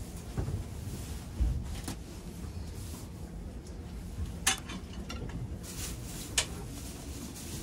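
Fingertip presses on a train seat's armrest touch-button control panel: a few sharp clicks, the two loudest about four and a half and six and a half seconds in, over the low steady rumble of the train car.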